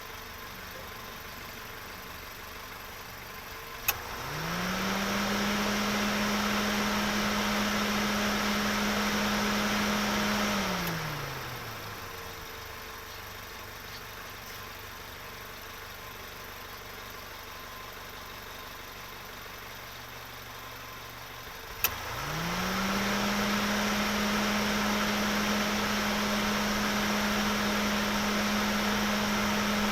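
A car engine running low in the background. Twice, a sharp click is followed by the engine note rising quickly to a steady high pitch. The first time it holds for about six seconds and then winds back down; the second time it is still holding at the end.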